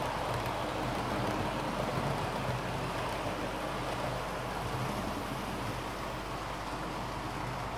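Bachmann OO-gauge Mk2f model coaches running past on the layout: a steady rolling hiss of small metal wheels on model track, easing slightly after a few seconds as the train moves off.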